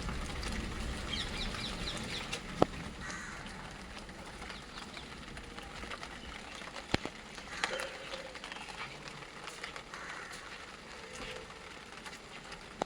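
Parrots squawking in short bursts of rapid, high calls over the steady hiss of rain. Two sharp taps stand out, the loudest a little over two seconds in and another about seven seconds in.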